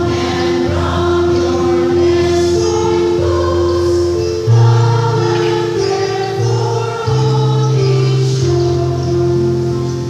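Church choir of mostly women's voices singing together, over held low accompanying notes that change every second or two.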